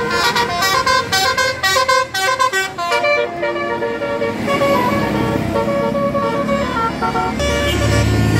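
Bus telolet horn, a multi-tone musical air horn, playing a tune of short stepped notes, quick at first and then slower. A bus engine's low drone rises near the end.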